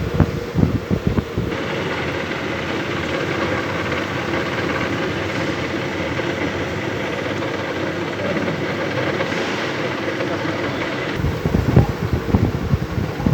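Lathe running with a steady mechanical hum and a few faint steady tones. Gusty low rumbles of wind on the microphone come at the start and again near the end.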